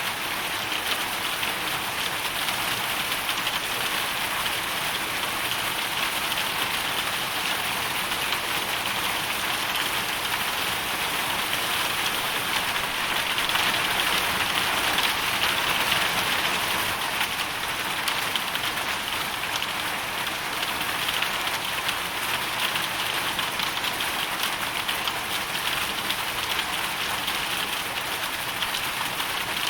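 Hailstorm: hailstones and rain pelting a surface in a dense, steady patter of fine ticks, swelling slightly about halfway through.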